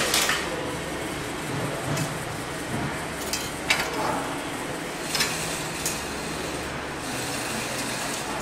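A few scattered light clicks and knocks from handling a tape measure and a derailleur hanger alignment gauge at a bicycle's rear wheel, while the hanger is checked for straightness. A steady low hum runs underneath.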